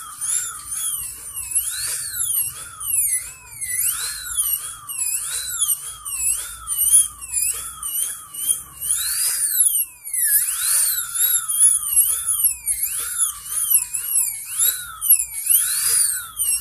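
Dental drill whining at a high pitch as it works on a front tooth, its pitch dipping and rising again over and over. It cuts out briefly about ten seconds in.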